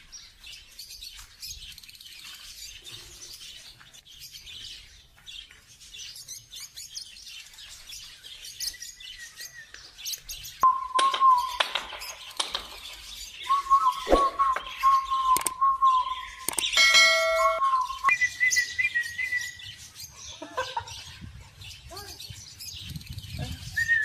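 African lovebird chirping: rapid, high-pitched chatter that runs on and off throughout. In the middle come a few long, steady whistled notes.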